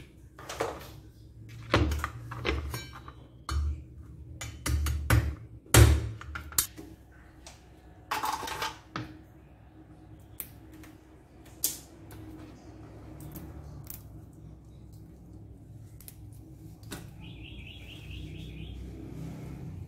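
Irregular knocks, clicks and clatter of raw crabs being handled and cut apart at a stainless steel sink, busiest in the first several seconds and sparser afterwards, with a short rushing noise about eight seconds in.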